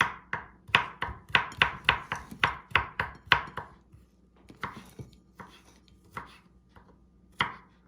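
Knife chopping garlic finely: a quick run of strokes, about five a second, for the first three or four seconds, then slower, spaced chops about two a second.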